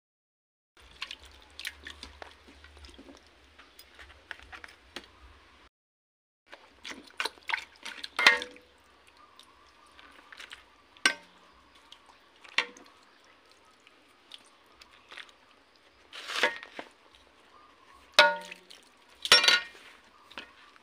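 Metal ladle scooping wet rice in an aluminium pot, knocking and scraping against the pot with irregular clinks, several of them ringing briefly, along with wet sloshing of the broth. The sound cuts out completely for about a second near six seconds in.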